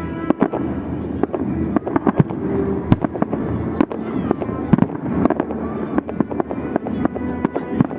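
Fireworks salute: a rapid, irregular run of shell bursts, several bangs a second, over a continuous crackling rumble.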